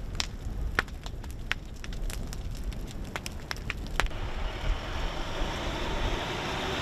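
Wildfire burning through brush: sharp, irregular crackles and pops over a low rumble, giving way about four seconds in to a steady rushing noise.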